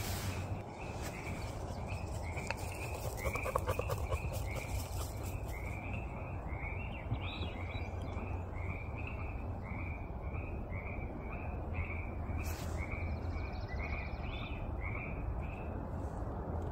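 A frog calling over and over, short calls repeated a few times a second, over a steady low rumble.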